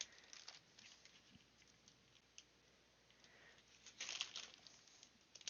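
Faint handling of small plastic fidget-toy pieces: a few light clicks, then a short run of clicking and rustling about four seconds in.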